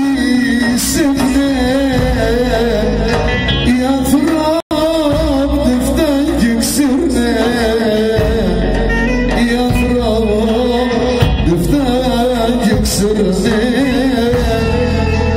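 A man singing a Greek folk song through a PA system, backed by a drum kit and an electronic keyboard, the melody full of wavering ornaments. The sound drops out for a split second about four and a half seconds in.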